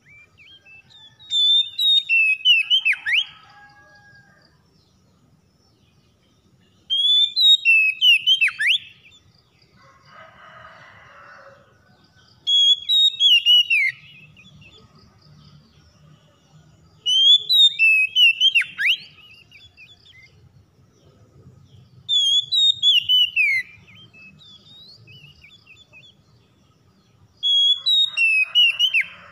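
Oriental magpie-robin singing: six short phrases of whistled, sweeping notes, one every four to five seconds. A brief harsh rasp falls between the second and third phrases.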